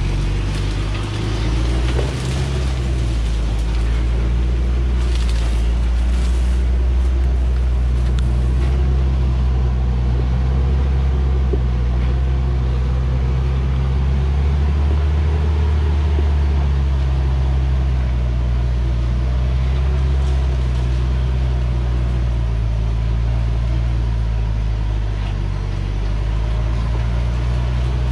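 Hoa Mai logging truck's diesel engine running at low revs with a steady drone, the truck crawling down a dirt forest track under a heavy load of acacia logs. A few short crackles and snaps come in the first several seconds.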